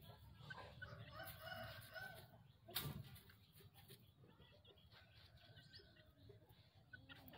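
Faint clucking and short calls from young chickens pecking at the ground, with one sharp click just under three seconds in.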